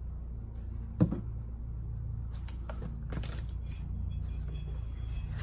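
Tire and rim being handled while soap is worked onto the bead: one sharp knock about a second in, then several light clicks and scrapes, over a steady low hum.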